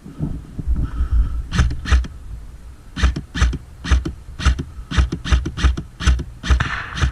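Specna Arms electric airsoft rifle firing a string of single shots with a sharp mechanical clack each time: a couple of shots early, then about two or three a second from about three seconds in.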